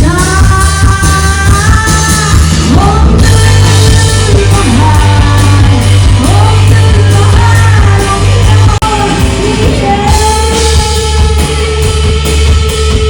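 Loud rock music with a singer's voice carrying the melody over a heavy bass and drums.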